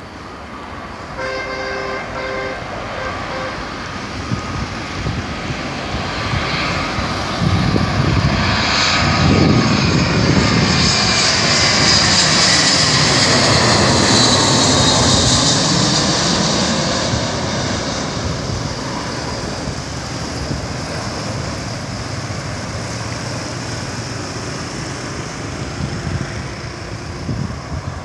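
Airbus A320 jet airliner flying low overhead on landing approach. Its engine noise swells to a loud peak over several seconds and then slowly fades, with a high whine that sinks in pitch as it passes over.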